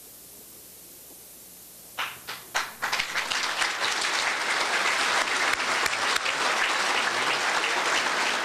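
A few scattered hand claps about two seconds in, after a low hiss, then the crowd joins in for steady applause.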